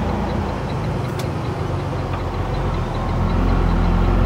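Semi truck's diesel engine running, heard from inside the cab during a left turn, growing louder in the last second or so as the truck pulls through. A faint, fast ticking sits over it, with a single click about a second in.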